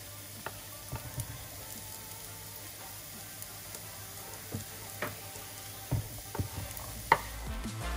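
Diced onion sizzling in oil in a frying pan, with scattered light taps and knocks as diced carrot is scraped off a wooden cutting board into the pan. Music comes in near the end.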